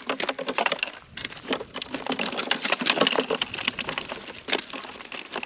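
Live yabbies (freshwater crayfish) clattering and scrabbling against the wire mesh of an open-top lift net and the plastic esky as they are shaken out of the net into it: a dense, irregular run of clicks and rattles.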